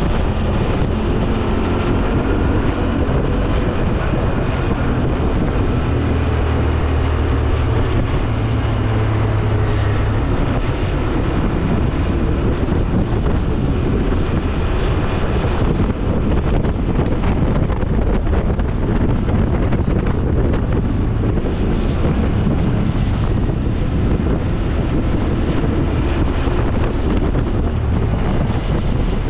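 Quad bike riding along: its engine running under heavy wind buffeting on the microphone. A low engine drone comes through more clearly for a few seconds, about six seconds in.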